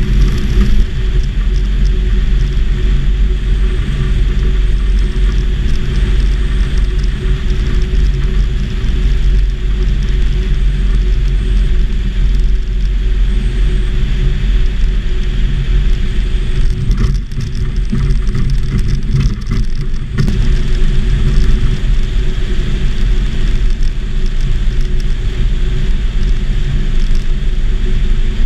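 Propeller engine of a homebuilt Volksplane VP-2 running steadily at power, heard from inside the cockpit, easing off briefly a little past halfway.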